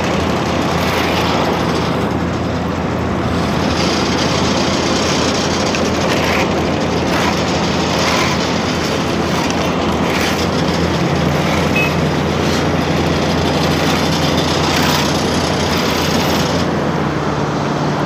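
Heavy diesel engines of a Vögele asphalt paver and the dump truck feeding it, running steadily; the engine note steps up slightly about eleven seconds in.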